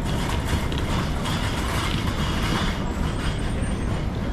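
City street noise: a steady hum of traffic with a low rumble of wind on the microphone.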